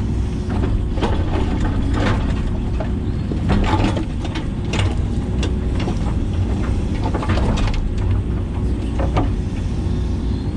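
Hitachi 130LCN excavator's diesel engine running steadily while digging, with irregular clanks and scrapes from the bucket and linkage working the ground.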